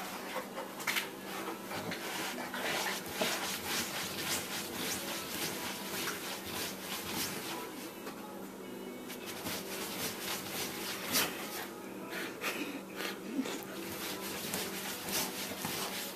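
Dog scratching and digging at a bed with its claws: a run of irregular rubbing and scraping strokes, some sharper than others.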